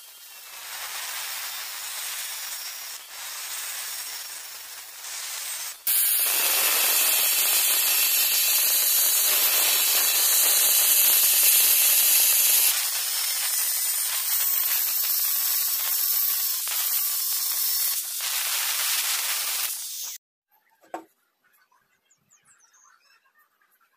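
Angle grinder with a thin cutting disc cutting through a steel bar, a steady hissing grind. It grows louder about six seconds in as the disc bites deeper, and cuts off suddenly near the end.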